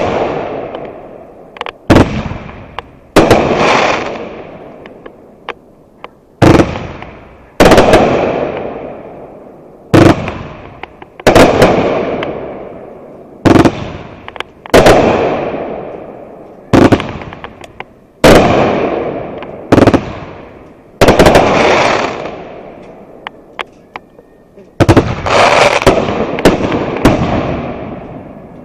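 Aerial fireworks going off in a steady sequence of loud bangs, about one every one and a half to two seconds, each fading away over a second or more; near the end the bangs come closer together.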